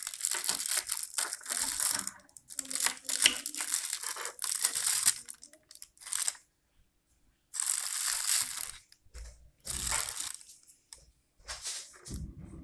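Irregular bursts of crinkling, rustling handling noise as an amplifier tone-control board, with its potentiometers and bundled wires, is picked up and turned over in the hand.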